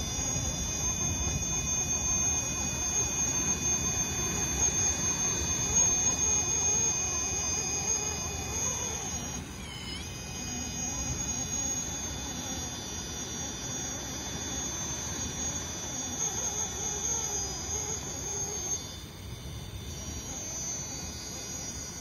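Electric RC rock crawler's motor and gear drive whining steadily in several high tones as it creeps up steep rock. The pitch dips briefly about halfway through as the throttle eases, over a low rumbling noise.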